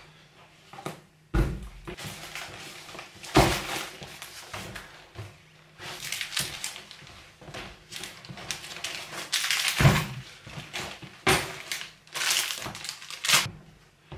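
Bags and camping gear being handled and dropped onto a wooden floor: several dull thuds, the loudest about ten seconds in, with rustling of fabric and plastic between them.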